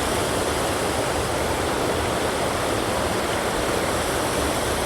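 Waterfall cascading over rocks close by: a steady, unbroken rush of falling water.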